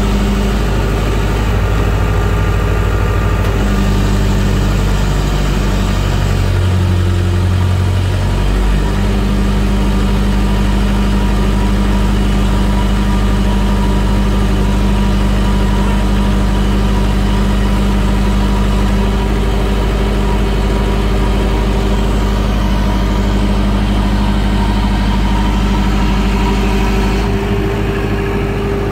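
TSUZUMI TDG 50 kVA silent diesel generator running steadily, its four-cylinder water-cooled 4108D engine heard through the sound-proof canopy. Its note shifts briefly about seven seconds in.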